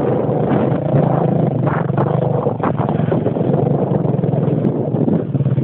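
Trail motorcycle engine running steadily while riding a rough dirt trail, with a few clattering knocks from the bike about two seconds in.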